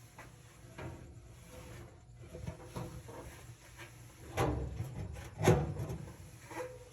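Scattered knocks and rubbing from dryer parts being handled and fitted during reassembly, with two louder knocks about four and a half and five and a half seconds in.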